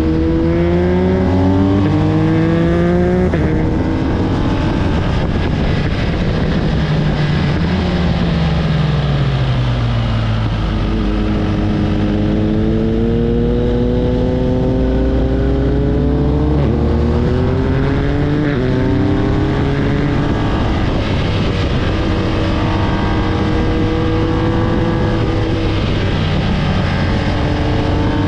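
Race car engine accelerating hard through the gears: its pitch climbs and drops back with each upshift, falls away in a long slide up to about ten seconds in, then climbs through the gears again.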